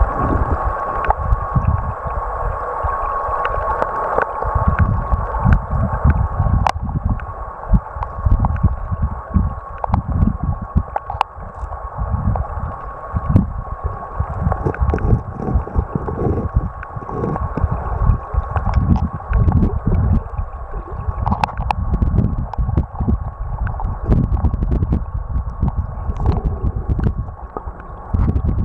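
Flowing river water heard through a camera sitting underwater: an uneven low rumble and gurgle that swells and dips, with a faint steady high tone running through it and scattered sharp ticks.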